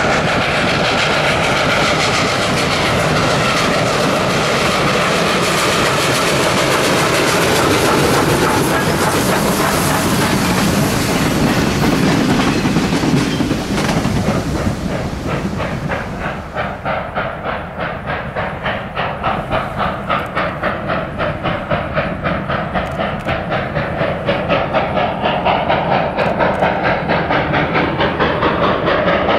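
Freight train passing close with the 2-8-0 Consolidation steam locomotive working hard as a rear-end helper: steady rumble and wheel clatter of the cars. After about fifteen seconds the sound recedes and turns into a steady rhythm of beats.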